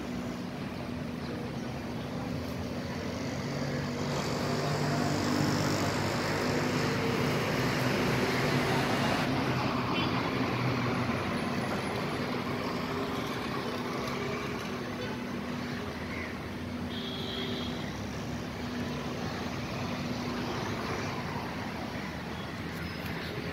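Street traffic: motor vehicle engines and road noise running steadily, swelling louder through the middle and then easing off.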